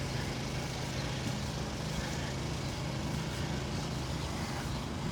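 Steady hum of city street traffic, with no distinct events standing out.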